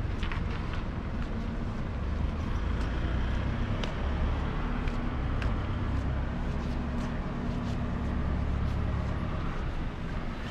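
Road traffic on a city street: a motor vehicle's engine running close by over a steady low rumble. Its hum is loudest through the middle several seconds and then eases off near the end.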